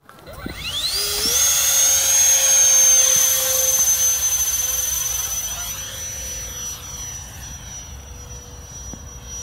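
Electric ducted fan of an FMS Super Scorpion 70 mm RC jet spooling up with a rising whine, then holding a steady high whine that fades over the last few seconds.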